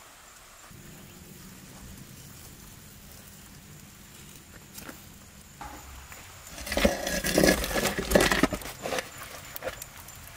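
Metal baking tray scraping and clattering on the ash-covered floor of a wood-fired brick oven as a round flatbread is handled and pulled out. The clatter comes in a burst of about two seconds, starting a little past halfway in, after a low, quiet background.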